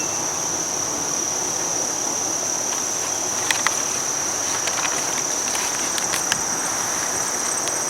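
Crickets chirping in a continuous, steady, high-pitched trill, with a few faint ticks about halfway through and near the end.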